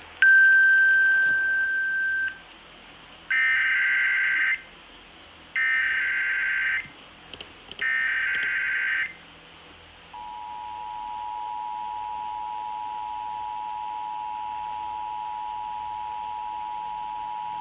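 Emergency Alert System tones: a steady single beep for about two seconds, then the three screeching bursts of the SAME digital header, then the two-tone EAS attention signal held steady for about eight seconds, which announces an alert message.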